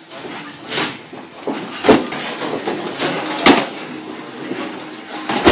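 Punches and kicks from kickboxing gloves and shins landing during sparring: several sharp hits, the clearest two about a second and a half apart.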